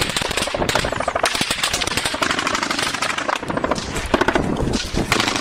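Automatic gunfire: rapid strings of shots following one another with barely a break.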